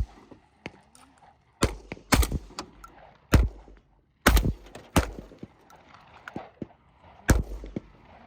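Gunshots fired at steel targets, about six shots at uneven intervals of half a second to a few seconds, each sharp crack followed by a short ring-out.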